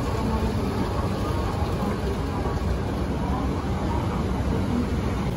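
Escalator running: a steady low mechanical rumble with faint hum.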